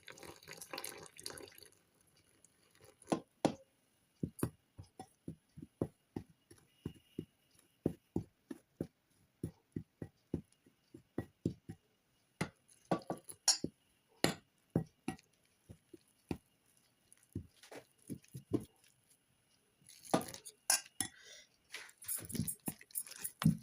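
Kitchen utensils clinking and knocking: a run of many light, sharp taps at an uneven pace, with short stretches of scraping and rustling near the start and toward the end.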